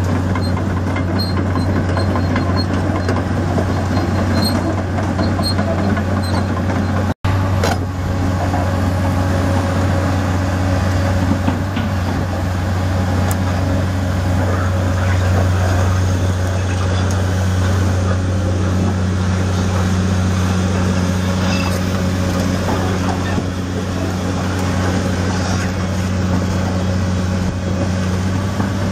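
The Cummins six-cylinder turbo diesel of a 1998 Hyundai Robex 290LC-3 long-reach excavator running steadily with a low drone while the machine moves about. The sound cuts out very briefly about seven seconds in.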